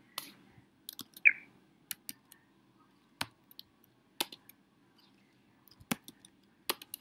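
Scattered single keystrokes on a laptop keyboard, sharp isolated clicks roughly a second apart. A brief high squeak a little over a second in is the loudest sound.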